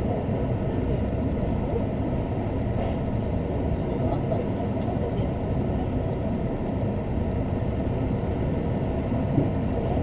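Steady running noise of a diesel express train heard from inside the passenger car, a low, even rumble of wheels on rail and the underfloor engine, with one short click near the end.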